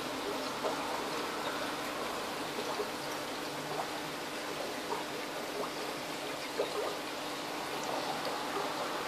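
Aquarium aeration bubbling steadily, with many small bubble pops over a continuous watery rush and a steady low hum.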